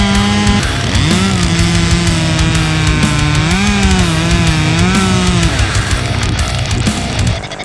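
Loud heavy metal music with a steady beat and held notes that bend up and down, briefly dropping away near the end.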